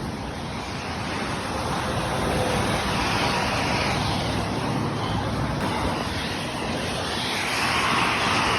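Road traffic on wet pavement: a steady rumble with tyre hiss that swells as cars pass, once in the middle and again near the end.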